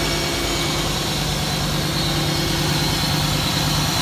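A car's 140-horsepower engine idling steadily and a little loud, just started after a long spell of cranking that left lots of unburnt fuel in it and after a long time without running.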